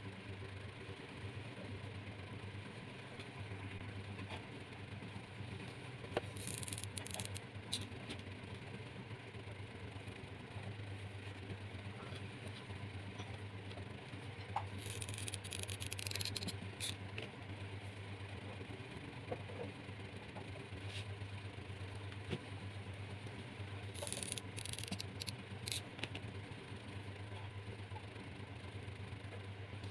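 Steady low hum in the background, with a few short spells of rustling and scraping as hands handle a glittery trim and press it against a box of bamboo skewers.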